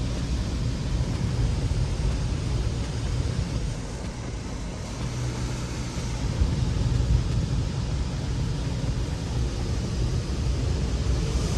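Touchless automatic car wash working over the car: a steady rushing noise with a heavy low rumble, dipping a little about four seconds in and building again after about six seconds.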